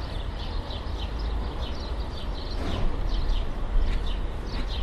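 City street ambience: a steady low traffic rumble with small birds chirping over it, several chirps a second, and a brief swell of sound a little past halfway.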